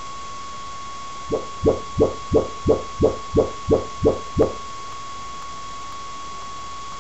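A home-theatre speaker playing a rapid series of about ten short, low test pulses, roughly three a second, which then stop: the Onkyo receiver's Audyssey auto-setup measuring a speaker through the setup microphone.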